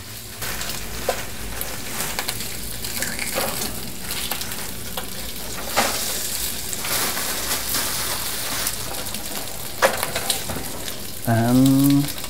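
Bacon frying in a pan: a steady sizzle with sharp crackles of spitting fat. A brief low hum sounds near the end.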